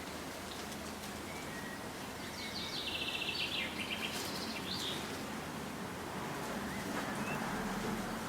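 A songbird singing a burst of rapid, high chirping and trilled notes from about two and a half to five seconds in, with a few faint chirps elsewhere, over a steady low hum and background hiss.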